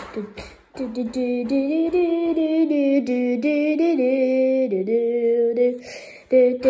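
A voice singing a wordless tune in long held notes that step up and down in pitch, with a short break near the end.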